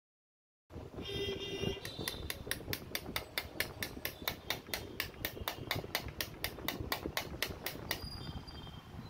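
Rapid, evenly spaced tapping, about four sharp strikes a second, over a rough mechanical noise. It starts abruptly after a moment of silence and thins out near the end.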